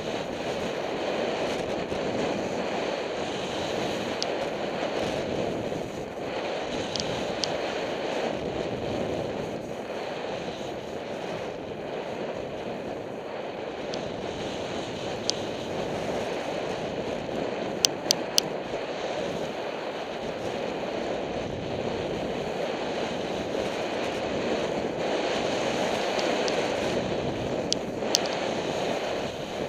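Wind rushing over the microphone and the hiss of skis sliding on packed snow during a fast downhill run. A few sharp clicks cut through, three of them in quick succession partway through.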